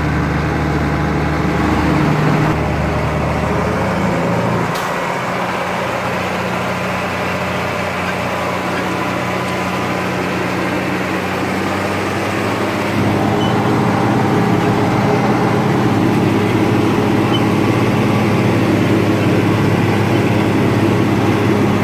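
Case tractor's diesel engine running steadily while driving, heard from inside the cab. Its note shifts about two and five seconds in, and it grows louder about thirteen seconds in.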